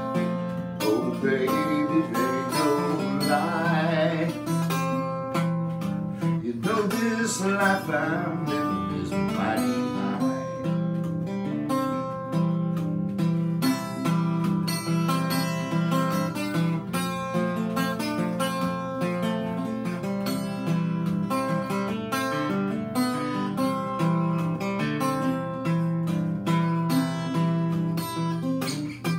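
Acoustic guitar playing a country blues instrumental break, fingerpicked with a steady alternating bass under the plucked melody.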